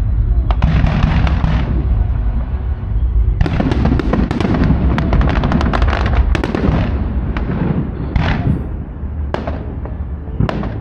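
Aerial firework shells bursting: deep booms with a heavy rumble, and a long stretch of dense crackling from about a third of the way in, then a few separate sharp bangs near the end.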